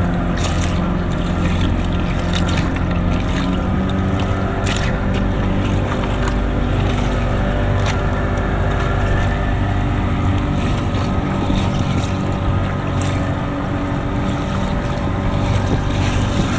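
Boat's outboard motor running steadily, with occasional short clicks and knocks as fish are handled in a plastic cooler.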